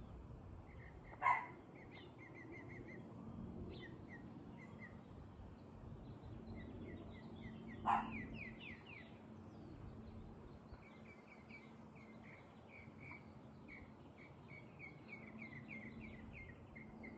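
Small birds chirping in quick series of short, repeated high notes, with pauses between the series. Two louder, sharp, brief sounds come about a second in and again about eight seconds in.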